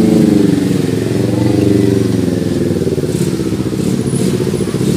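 A motor vehicle engine running close by, a loud steady hum whose pitch drifts slightly.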